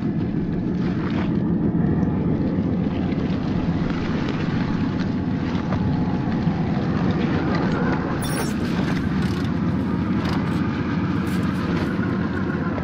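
Traxxas TRX-4 RC crawler's electric motor and gearbox whirring steadily as it drives, with scattered crackles and clicks of its tyres rolling over snow, dead leaves and twigs.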